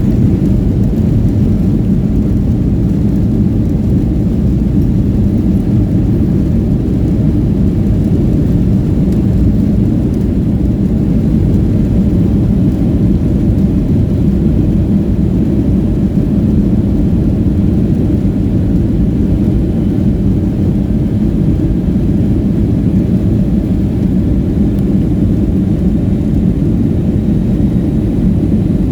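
Jet airliner heard from inside the passenger cabin during takeoff: a loud, steady low rumble of engines and airframe.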